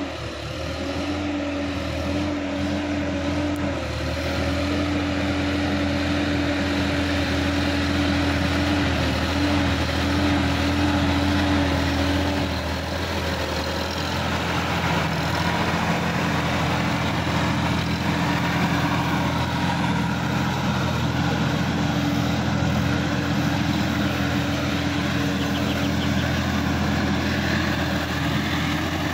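Sonalika DI-50 RX tractor's diesel engine running steadily under load while it drives a rotary tiller through flooded paddy mud. Its tone shifts lower about halfway through.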